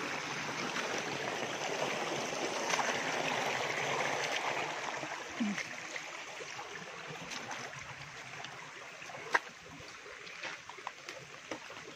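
Stream water running over rocks, a steady rush that is louder for the first half and fades after about six seconds. A single sharp knock sounds near the end.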